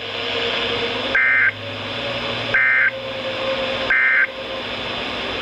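Emergency Alert System end-of-message signal: three short bursts of two-tone digital data squawk, each about a third of a second long and about 1.4 s apart, marking the end of the warning. They sound over steady radio hiss.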